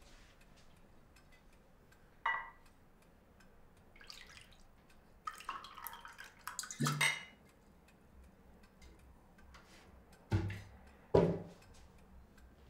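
Wine poured from a bottle into a stemmed wine glass, a couple of seconds of splashing near the middle. Before it comes a single ringing glass clink, and near the end two dull knocks of glass or bottle on a hard surface.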